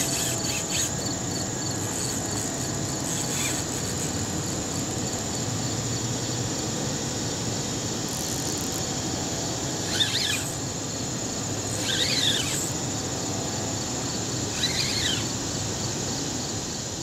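Steady high insect buzz with a faint regular pulse, and three short squealing chirps, each sweeping down and up in pitch, about two seconds apart in the second half.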